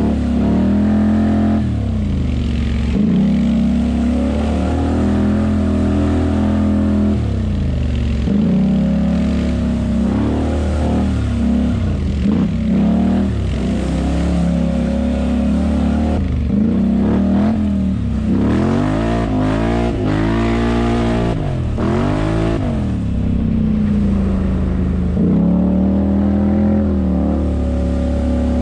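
Polaris ATV engine under changing throttle, revving up and dropping back again and again as it is ridden. The swells come every couple of seconds, with the quickest, highest rises in the middle of the stretch.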